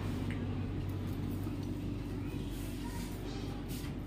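Steady low hum with faint voices in the background.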